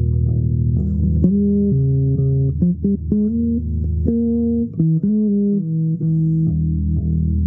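Improvised instrumental melody of low, held notes that change every half second or so, with some sliding between pitches.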